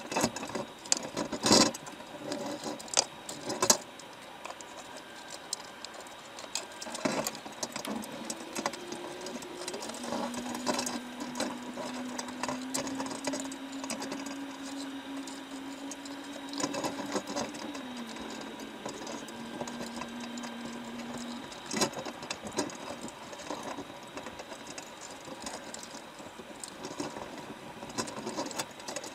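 Underwater sound from inside a baited wire crab trap: scattered clicks and knocks as crabs clamber over the wire and bait, loudest in the first few seconds and again about twenty-two seconds in. A steady low hum joins about ten seconds in, drops slightly in pitch near eighteen seconds and stops about twenty-one seconds in.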